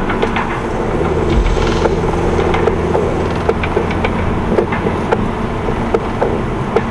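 A car on the move, heard from a dashcam inside the cabin: steady engine and road noise with short knocks and rattles scattered through.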